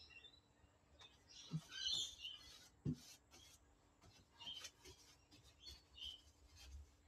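Birds chirping in short high calls, with a busier burst of chirps about two seconds in. Two light knocks come about one and a half and three seconds in.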